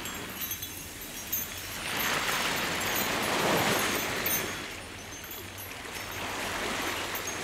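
Sea surf: waves breaking and washing on a sandy beach, one loud wash swelling and fading in the middle and a smaller one near the end.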